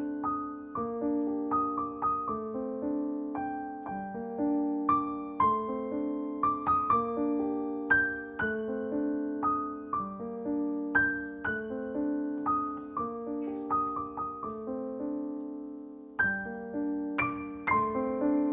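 Background music: a gentle piano piece of chords with a melody above them, one note after another.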